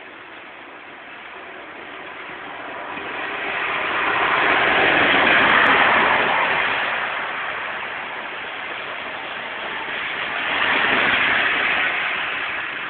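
Two vehicles passing one after the other on a wet road: the hiss of tyres on the wet surface swells and fades, the first loudest about halfway through, the second near the end, over steady rain.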